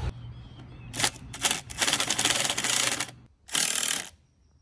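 Cordless impact driver driving a screw into a wooden chair seat, in four bursts of rapid hammering, the longest over a second.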